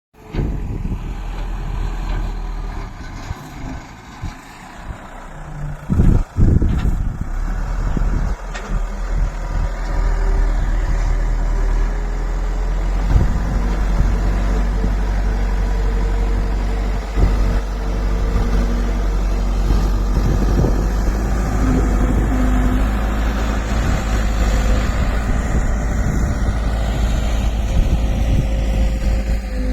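Case 770 NXe backhoe loader's diesel engine running steadily while it works soil, with a couple of heavy knocks about six seconds in and a steady higher whine joining from about ten seconds in.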